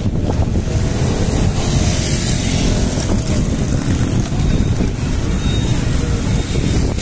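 Wind rushing over the microphone of a camera mounted on a moving bicycle, with the engines of passing cars, motorcycles and motorcycle tricycles in street traffic underneath.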